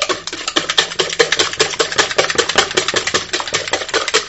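Wire whisk beating eggs and sugar by hand in a plastic mixing bowl, its wires tapping the bowl in a fast, even clatter of clicks.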